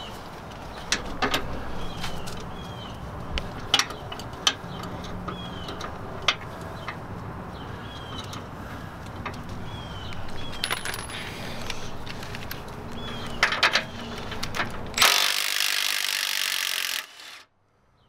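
Hand tools clinking and knocking on metal, sharp separate clicks every second or so, as a wrench works on bolts under a truck's front end. Near the end comes about two seconds of loud rushing noise that cuts off suddenly.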